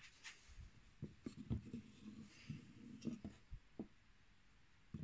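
Faint rubbing and several soft knocks of wood on wood as the drawer of a bandsaw box made from a log is pulled out and handled on a wooden workbench.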